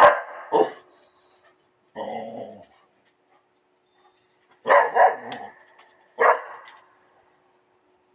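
A dog barking and making talking-like vocal sounds in a series of separate calls: two sharp barks right at the start, a longer call about two seconds in, a quick run of calls around five seconds, and one more a little after six seconds.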